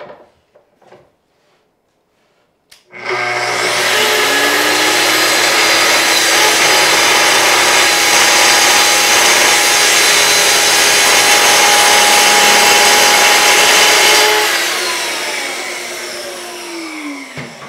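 Festool TS 55 plunge track saw switching on about three seconds in, spinning up and running steadily through a cut that trims just a sliver off the end of a wooden board. It is switched off near the end and winds down, its pitch falling.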